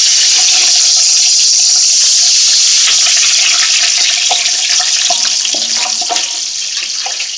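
Whole green chillies deep-frying in hot oil in a pot: a loud, steady sizzle that eases off a little over the last couple of seconds.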